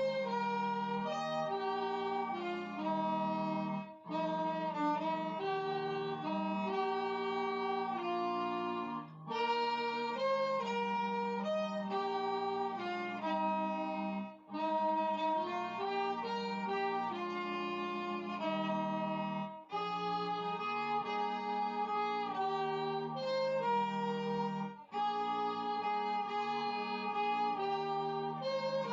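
Violin playing a slow hymn melody along with a recorded alto saxophone, several notes sounding together, in phrases broken by short pauses about every five seconds.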